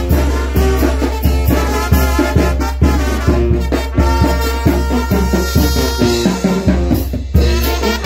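A brass band playing a chilena: trumpets carry the tune over a steady beat with a strong low bass.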